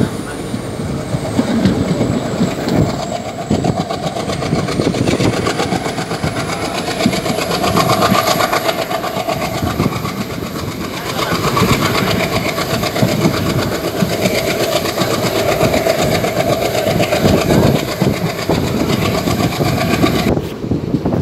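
Passenger train running along the line, heard from inside a carriage at the window: a steady, loud noise of wheels on rails.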